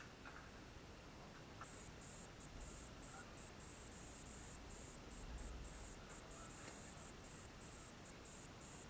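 Near silence: faint outdoor hush, with a thin, high-pitched chirping that pulses on and off irregularly from about a second and a half in.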